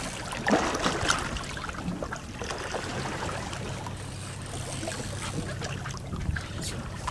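Fishing boat's engine idling steadily with a low hum, water lapping and splashing alongside, and a few sharp knocks about half a second to a second in.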